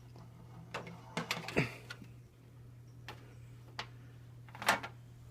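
Handling noise from a Superlectric box fan's metal cabinet as it is moved and turned over: a handful of light knocks and clicks scattered over a few seconds, the loudest near the end.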